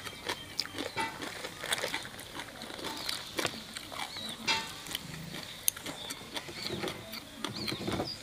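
Close chewing and eating sounds: wet mouth smacks and small crunches of food being chewed, in many short irregular clicks.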